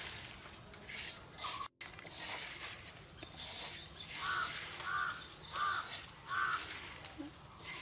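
A hand mixing sliced onions, green chilies and spices in an iron wok, with a repeated rustle. A little past the middle, a bird calls four times in a row, about two-thirds of a second apart; these calls are the loudest sounds.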